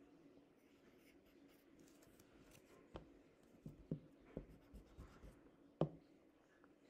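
Pencil writing on a sheet of paper: faint scratching, with several sharp little taps of the pencil between about three and six seconds in, the loudest near the end.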